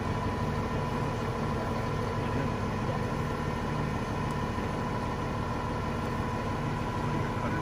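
An engine running steadily at idle, with an even low drone and a faint steady higher hum.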